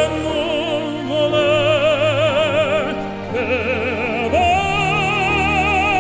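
Music: a singer in classical, operatic style holds long notes with wide vibrato over sustained accompaniment, moving up to a higher held note about four seconds in.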